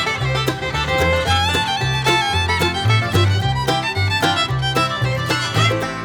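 Instrumental background music in a bluegrass style: a fiddle melody over plucked strings and a moving bass line.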